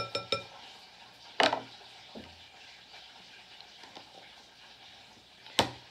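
Metal measuring spoon clinking against a glass mixing bowl, two short ringing taps at the start, then a louder knock about a second and a half in and a sharp knock near the end.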